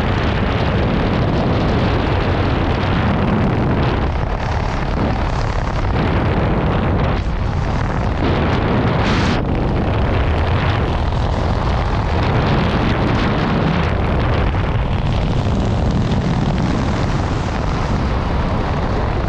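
Loud, steady wind rushing over the microphone during a parachute descent under an open canopy.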